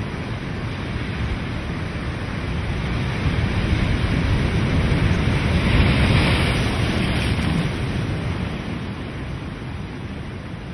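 Ocean surf rushing, swelling to a peak about six seconds in and then fading.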